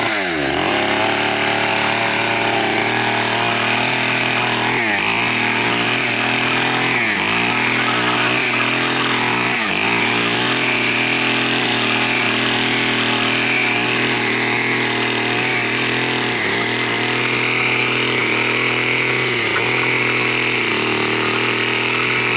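A power tool's motor running continuously, its speed dipping sharply and recovering about six times, as it bogs under load and picks up again.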